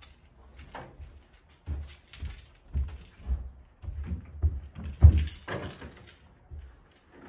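Footsteps climbing carpeted wooden stairs, heavy thuds about two a second, with a louder thump and a rattle about five seconds in.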